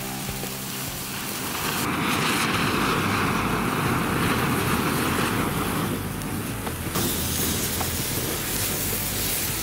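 A big bundle of sparklers burning with a steady rushing fizz and crackle, which swells about two seconds in.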